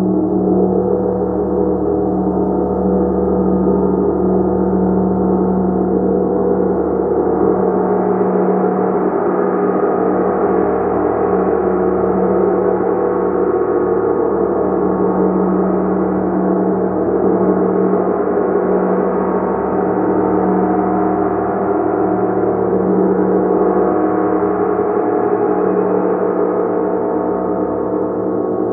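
A gong played continuously, giving a loud, sustained wash of many overlapping ringing tones. The brighter overtones swell and ease back every several seconds, with no single strike standing out.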